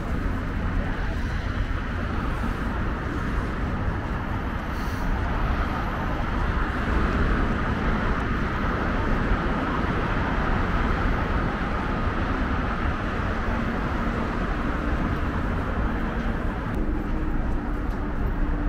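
Steady city street traffic: cars passing with a continuous wash of engine and tyre noise. A faint steady engine hum joins in during the last few seconds.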